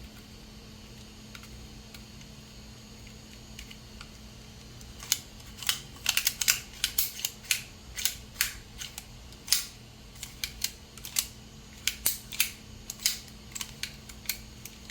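Toughbuilt scraper utility knife being worked after its rebuild: a quick, irregular run of sharp clicks from its mechanism, starting about five seconds in and going on to the end, the sign of the repaired knife moving through its positions again.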